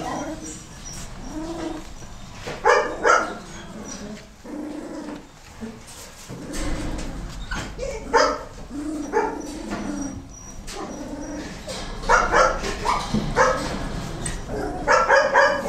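Newborn Goldendoodle puppies in a litter whimpering and squeaking. Short high cries come in clusters several times, with quieter stretches between.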